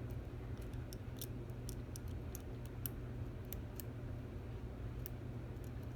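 Light, irregular metallic clicks of a lock pick probing the pins of a Stanley 24/7 padlock under tension, feeling for the binding pin. A steady low hum runs underneath.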